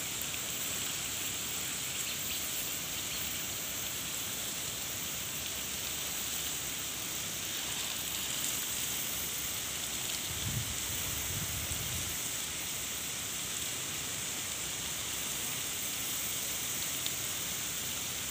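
A jet of water from a hose spraying steadily onto plants and soil, a rain-like patter, with a brief low rumble about ten seconds in.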